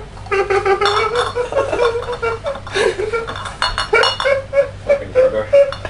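A young man's high-pitched, whining "crying laugh": a held squeal that breaks into a run of pulsing squeals, about three a second, from about four seconds in. Empty glass bottles clink against each other as he clutches them.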